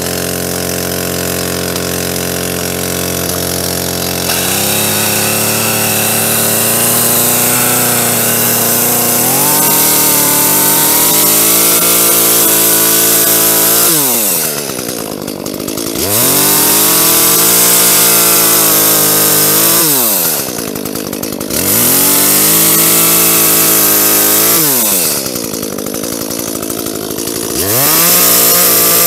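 Echo CS-310 chainsaw's two-stroke engine idling, then throttled up to cut through a tree limb. Under load its note wavers, and it drops three times and climbs back up as the throttle is eased and opened again.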